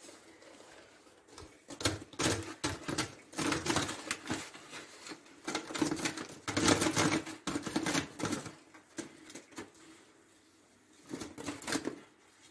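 French fries being tipped and handled into a shake-shake bag: irregular rustling and light clattering, busiest about two seconds in and again around six to seven seconds in, quieter near the end.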